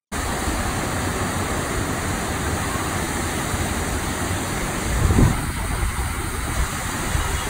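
Water rushing steadily down a water-ride chute into the splash pool below, with a brief low swell about five seconds in.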